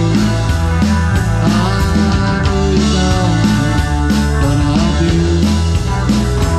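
Live band playing amplified through a PA: electric guitars over bass and drums, with regular cymbal hits.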